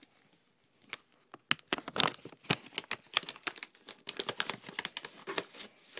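Rockin' Green laundry detergent's plastic pouch crinkling and rustling as it is handled and opened, in rapid irregular crackles starting about a second and a half in.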